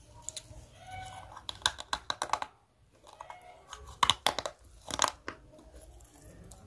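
Close-miked crisp bites and chewing of a crunchy raw vegetable: two spells of crackling crunches, one about a second and a half in and a louder one about four seconds in.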